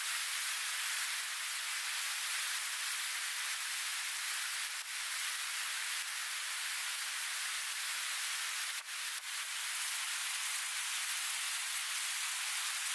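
Rushing river rapids: a steady hiss of whitewater with no low rumble, briefly dipping about five and nine seconds in.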